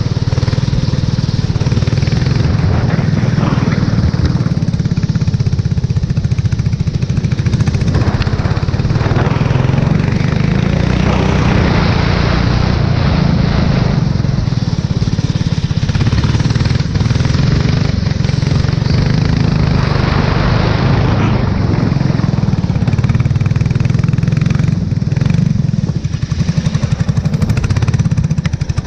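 Race car engine running continuously on a wet track, recorded onboard. A rushing hiss swells and fades every few seconds over the steady engine note.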